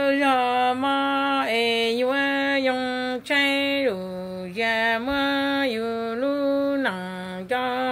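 A woman singing solo and unaccompanied in a chant-like style: long held notes, each phrase stepping down in pitch, with short breaths between phrases.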